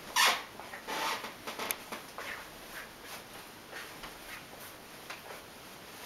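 Short rustling and scraping sounds from a handheld camera being handled and moved, the loudest about a quarter second in and another about a second in, then a run of fainter ones.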